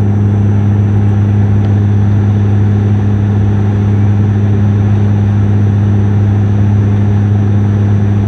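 Airliner cabin noise during the descent to land: steady engine drone with a strong, even low hum over a wide rushing hiss, unchanging throughout.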